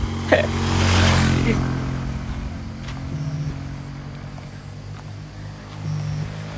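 A small motorcycle-type engine idling steadily, growing louder about a second in and then settling back.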